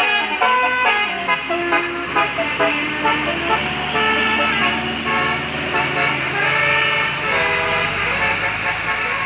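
Bus 'telolet basuri' musical air horn playing a tune: a quick run of short stepped notes, then longer held notes, over the low rumble of the bus engine.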